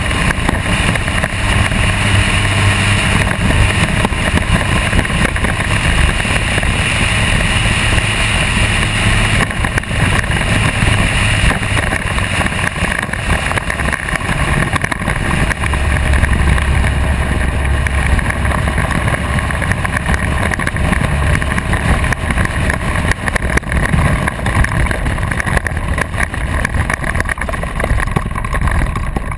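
Spec Racer Ford's engine running at track speed during an onboard lap. The engine note shifts about ten seconds in and again a few seconds later.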